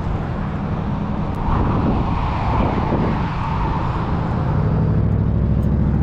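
A motor vehicle's engine running nearby, getting louder about one and a half seconds in and holding there.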